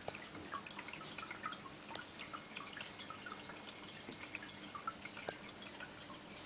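Aquarium water dripping and bubbling: a steady scatter of small, irregular drops and pops over a faint steady hum, with a few sharp clicks.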